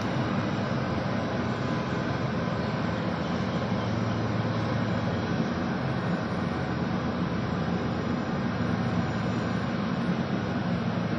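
Steady jet aircraft noise: an even low rumble under a broad hiss.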